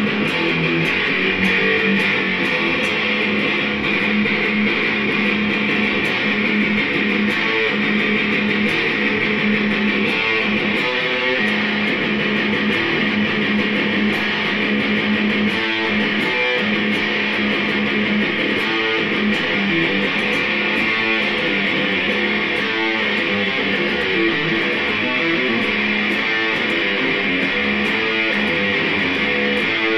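ESP LTD EC-1000 electric guitar played through a heavily overdriven amp set for a metal tone: distorted, rhythmic chugging riffs.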